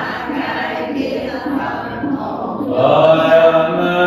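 Vietnamese Buddhist liturgical chanting, kept in time by a steady low knock about two and a half times a second. A sustained chanted voice grows louder about three seconds in.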